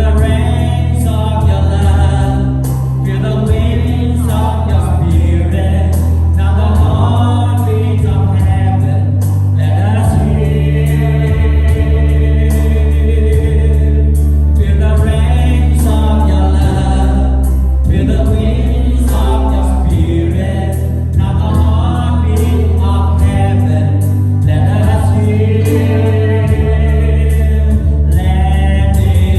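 Gospel worship song with a choir singing over a steady bass and band accompaniment.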